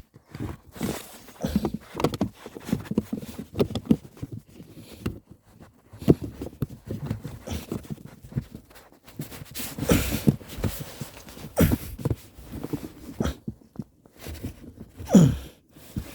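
Plastic filter cover and trim being handled and refitted: irregular knocks, clicks and rustling, with a short falling squeak near the end.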